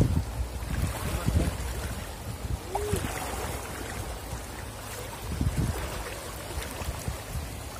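Shallow river water rushing over rocks, with a few splashes and sloshes as a man wades and works a hand scoop net through the current.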